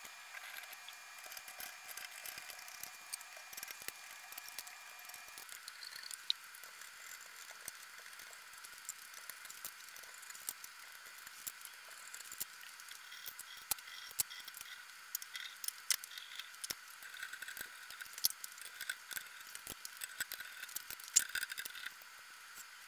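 Faint, scattered clicks, ticks and light rattles of ceiling fan parts being handled and taken apart: a glass globe, bulbs and light-kit fittings unscrewed and lifted off, with a few sharper clicks spread through.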